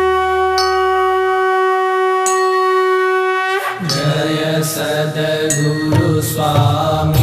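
A conch shell (shankh) blown in one long steady note for about three and a half seconds, with two sharp metallic strikes over it. Then aarti chanting with ringing bells and percussion starts.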